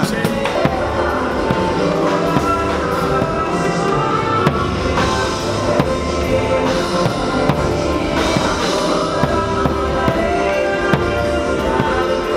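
Pagode band playing, with a surdo bass drum struck with a mallet under pitched instruments.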